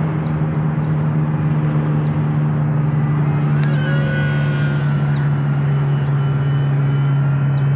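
A steady low hum with overtones, and over it the faint whine of the KFPLAN KF603 RC plane's twin brushed motors, sliding up and down in pitch about halfway through as the throttle changes. A few short high chirps come and go.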